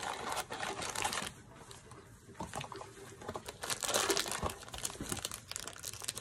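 Packaging of a Funko mystery-mini blind box being torn and crinkled in the hands: the cardboard box is ripped open and the foil bag inside is handled. It comes as a dense crackle, loudest in the first second and again about four seconds in.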